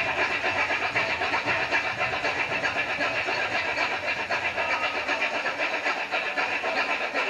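Balinese kecak chant: a chorus of men's voices repeating rapid, interlocking 'cak' syllables as a dense, steady rhythmic chatter.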